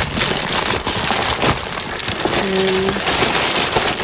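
Plastic bag crinkling loudly as it is handled, with many sharp crackles and clicks throughout.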